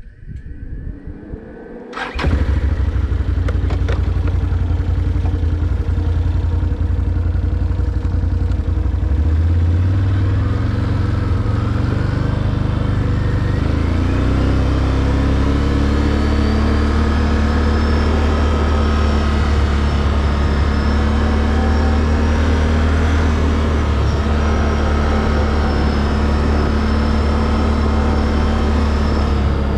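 Can-Am Outlander 800 ATV's V-twin engine being cranked and catching about two seconds in, then running and picking up revs as the quad pulls away, its pitch rising and then holding steady at cruising speed.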